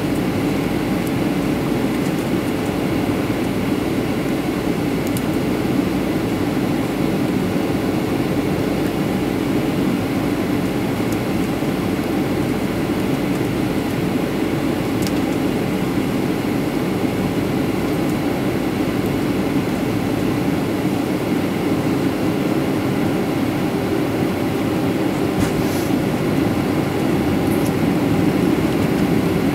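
Steady cabin noise inside a Boeing 737-300 in flight: its CFM56-3 turbofan engines and the rush of air, a constant drone with a steady low hum.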